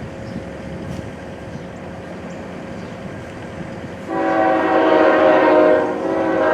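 Train horn sounding a loud multi-note chime chord, starting about four seconds in, with a short break before a second blast. Before it, a steady low rumble of waiting trains.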